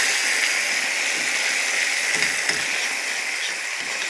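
Thick mushroom-soup gravy sizzling steadily in a hot skillet while a metal spoon stirs it, with a few faint scrapes as the browned bits are worked off the bottom of the pan.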